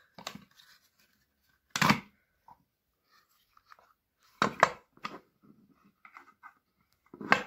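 Plastic housing of an Opel Corsa D door lock unit being levered apart with screwdrivers: three loud sharp cracks a bit over two seconds apart, with light scraping and clicking of the tools on the plastic between.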